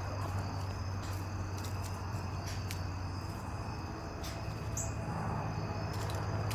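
Insects trilling steadily in high, continuous tones, over a low steady hum and a few faint clicks.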